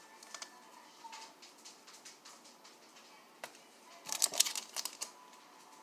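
Light clicks and taps from handling small plastic glitter containers while pouring glitter into glue, with a burst of rapid rattling clicks about four seconds in.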